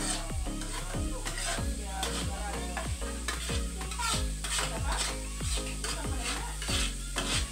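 Background music with a steady beat: a deep kick drum about twice a second over held bass notes, with crisp high percussion on top.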